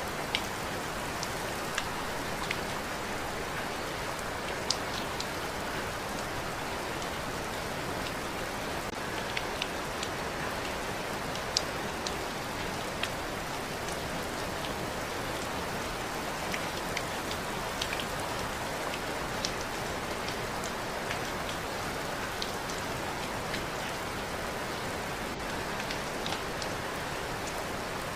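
Steady rain falling, an even hiss with scattered individual drops ticking sharply on a surface now and then.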